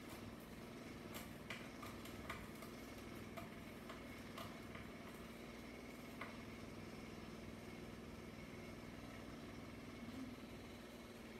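Small electric cotton candy machine running with a steady low motor hum, and a few faint clicks scattered through it.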